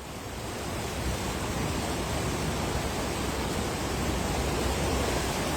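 Steady rushing noise of fast-flowing floodwater, swelling over the first second and then holding even.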